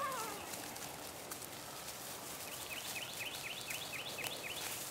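Quiet outdoor ambience with faint rustles and scuffs from puppies playing in grass. About halfway through, a bird sings a quick run of short down-slurred notes, about five a second, for roughly two seconds.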